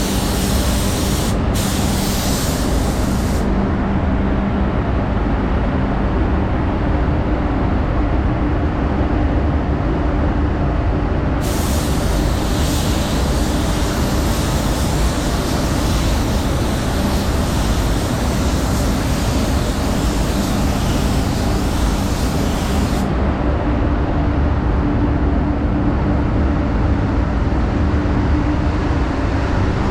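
Spray booth's extraction fans running with a steady loud roar and hum, while a paint spray gun hisses in two long passes: briefly at the start, then again for about eleven seconds in the middle.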